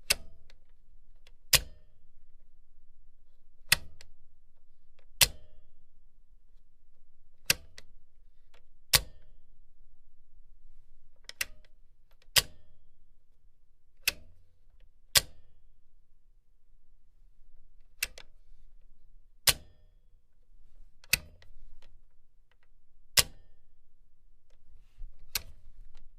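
A machine's switch being clicked over and over, with sharp single clicks every one to two seconds, often in pairs, over a faint low hum.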